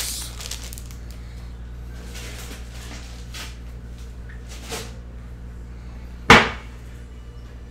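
Soft rustling and handling sounds while reaching for Post-it notes, then one sharp knock about six seconds in, over a steady low hum.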